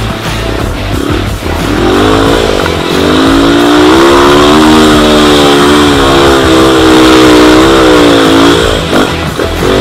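Dirt bike engine revving hard under load as the bike climbs a steep slope. The pitch rises about two seconds in, is held high and wavers with the throttle, then drops away near the end.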